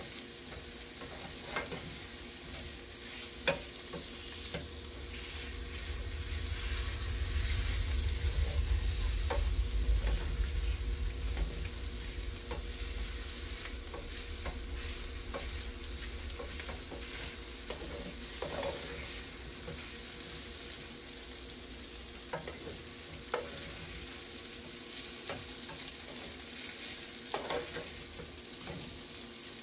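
Ramen noodles and mixed vegetables sizzling in a stainless steel frying pan as they are stir-fried, with the utensil clicking and scraping against the pan now and then. A low rumble swells and fades in the middle.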